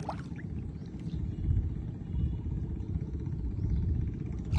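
Wind buffeting the microphone: a steady low rumble with no clear high sounds over it.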